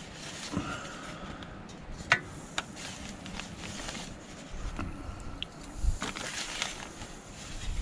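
Hands rustling in a plastic zipper bag of flour-dredged fish fillets, with a few sharp clinks of the metal fry basket against the fryer pot, the loudest about two seconds in.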